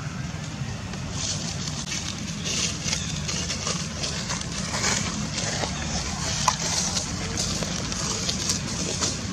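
Outdoor ambience: a steady low rumble with scattered crackling and rustling.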